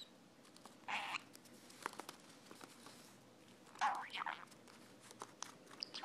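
Budgie chattering softly in two short bursts, about a second in and around four seconds in, with small clicks as its beak nibbles at a finger.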